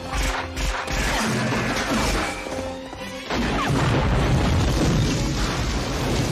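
A large explosion goes off about three seconds in, a long boom with crashing debris as a wooden shed is blown apart. It plays over a dramatic music score, with a few crashes and impacts before it.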